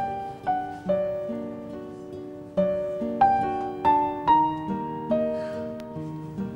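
Soft instrumental background music: slow single notes and chords, each struck sharply and left to ring and fade, about one or two a second.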